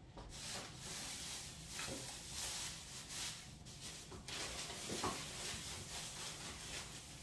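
Plastic shopping bags rustling as they are handled, in faint, irregular crinkles.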